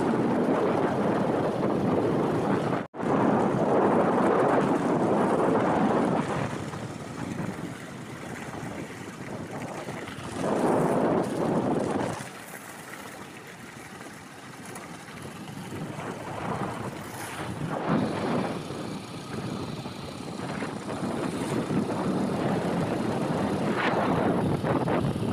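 Wind rushing over the microphone of a moving vehicle, a steady rough noise that swells and fades in gusts. The sound cuts out for an instant about three seconds in.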